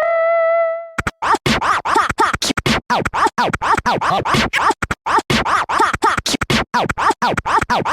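Electronic music made of short, rapidly chopped sound snippets with swooping pitch, several a second, in a scratch-like stutter, following a held tone that fades out about a second in.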